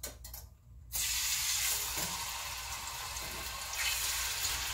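Hot oil in a pot sizzling as a piece of marinated chicken goes in: a sudden hiss about a second in that carries on steadily. A few light clicks of metal tongs come just before it.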